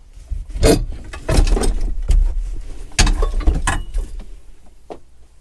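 Ford Super Duty fold-down center seat being pulled loose and lifted out of the cab: its metal frame, brackets and latches clunk and rattle in a series of knocks over the first four seconds, then quieter near the end.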